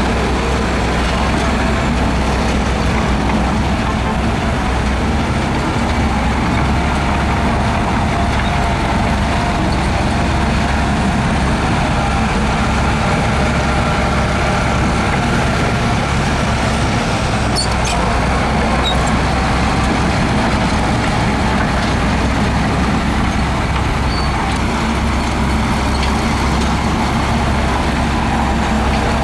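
Heavy diesel earthmoving machinery running steadily, with a low, even engine hum and a few faint clicks past the middle.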